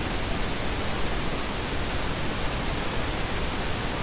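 Steady even hiss of background noise with no other sound standing out.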